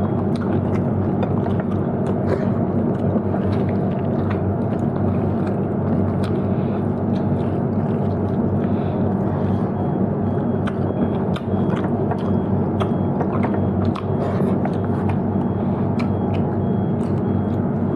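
A person chewing and eating, with scattered small clicks and taps, over a loud steady low hum.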